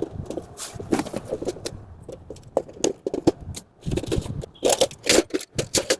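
Steel dish rack parts being unpacked from their packaging: irregular scrapes, rustles and clinks of metal strips and wrapping, getting busier about four seconds in.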